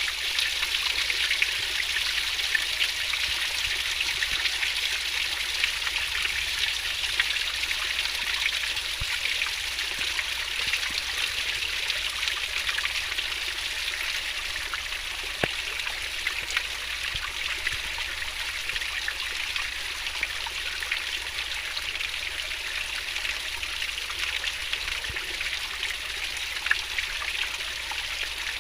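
Stream of water flowing fast, a steady babbling rush with small splashes throughout.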